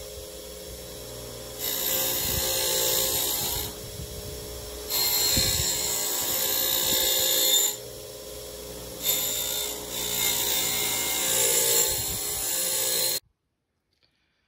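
Bench grinder with a wire wheel running steadily. A cast aluminium coaster is pressed against the wheel in four bouts of loud, hissing scrubbing, each a few seconds long, to clean the casting up. The sound cuts off suddenly near the end.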